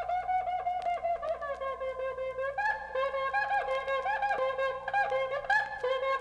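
Solo wind instrument playing a melody of short, quickly repeated notes, each bending up and back down in pitch, moving to a higher register a little over two seconds in.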